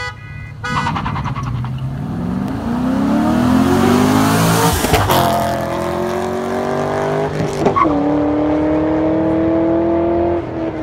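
A car horn toots once, then a Cadillac CTS-V and an Infiniti Q50 accelerate hard side by side at full throttle. Their engine notes rise, break at upshifts about five and about eight seconds in, then hold high and drop away near the end as the cars pull off.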